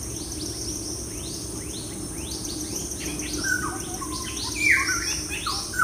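Insects trilling steadily, with a bird giving a run of short falling chirps, two or three a second, and a few lower calls in the second half.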